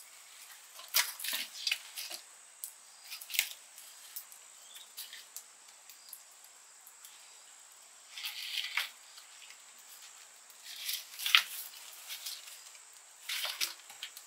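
Dry corn stalks and husks rustling and crackling in short irregular spells, several times over, as they are pushed into a wood fire under a large cooking pot.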